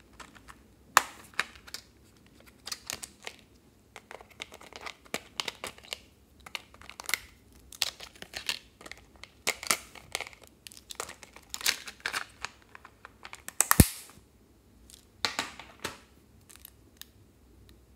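A clear plastic crayon case and its printed card insert being handled and opened: irregular crinkling and rustling with plastic clicks. One sharp click a few seconds before the end is the loudest sound.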